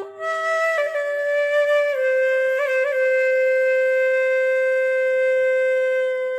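A flute-like wind instrument plays a few notes stepping down in pitch, then holds one long steady note with two quick ornamental flicks about two and a half seconds in, before stopping abruptly.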